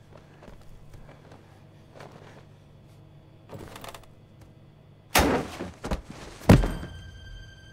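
Quiet shuffling and rustling, then a loud crash about five seconds in and a sharper, louder bang about a second later. Eerie sustained music tones begin right after the bang.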